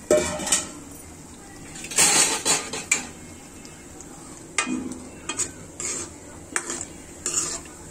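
Metal cooking utensil scraping and knocking against a pan in several short bursts, over the steady sizzle of nimki frying in hot oil.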